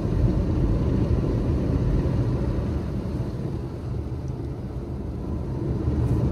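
Automatic car wash machinery heard from inside the car's cabin: a steady low rumble that eases slightly about halfway through.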